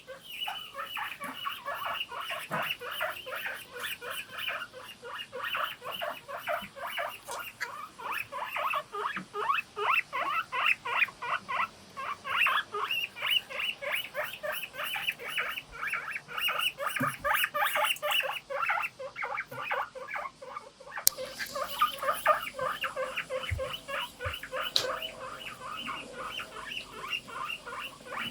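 Several guinea pigs wheeking together in a chorus: a dense, unbroken run of short high-pitched squeaking calls, several a second, overlapping one another.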